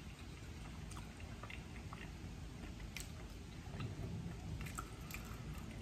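Faint chewing of a bite of spicy pork torta, with small mouth clicks scattered irregularly throughout.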